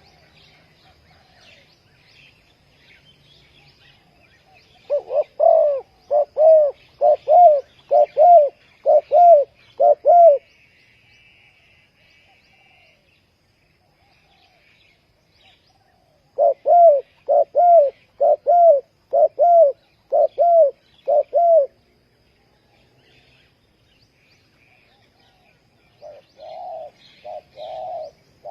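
Spotted dove cooing: two runs of short, arched coos at about two a second, each lasting around five seconds, with a third, quieter run starting near the end. Faint chirping of small birds in the background.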